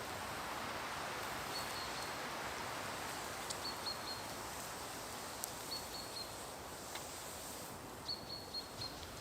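Woodland ambience: a small bird repeats a short, high, stuttering call about every two seconds over a steady rustling hiss, with a few sharp clicks.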